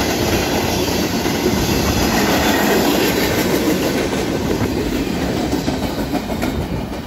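CSX freight train's cars rolling past on the near track, steel wheels clattering over the rails in a loud, continuous noise that eases slightly near the end.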